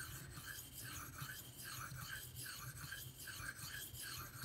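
Steel knife blade drawn in single strokes across a 10,000-grit polishing whetstone: a faint, even scrape about twice a second as the edge is polished.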